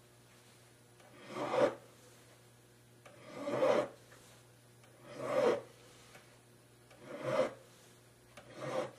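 Five slow strokes of a fine number 4 cut hand file rasping across a gold ring shank, about two seconds apart. Each stroke builds to a peak. The file is taking the excess solder off the outside of the sized ring.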